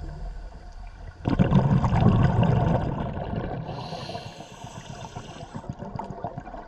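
A scuba diver breathing through a regulator underwater: a gurgling burst of exhaled bubbles about a second in that fades away, then the hiss of an inhalation.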